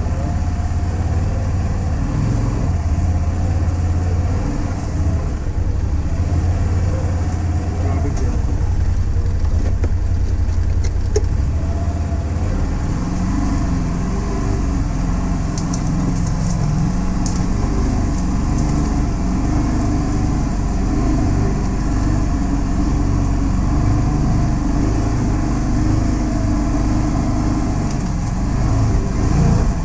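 Can-Am Defender HD10 side-by-side's Rotax V-twin engine running steadily on a dirt trail ride, its note changing about twelve seconds in.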